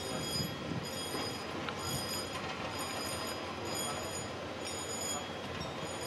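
A train rolls over a GDR-era WSSB level crossing with a steady rumble. The crossing's warning signal sounds over it as a high ringing tone that pulses on and off about once a second.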